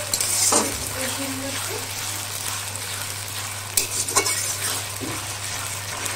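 A spice paste of onion and ginger-garlic sizzling in hot oil in a metal kadai while a metal spatula stirs it, scraping and knocking against the pan a few times, most sharply about half a second in and around four seconds in. This is the kashano stage, frying the masala down.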